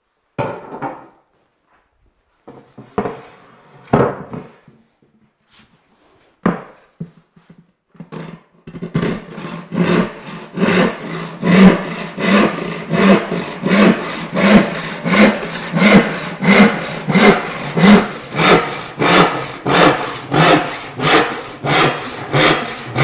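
A few wooden knocks as a pine board is handled and set on the saw bench, then a hand crosscut saw cutting through a radiata pine board in steady, even strokes, about three every two seconds.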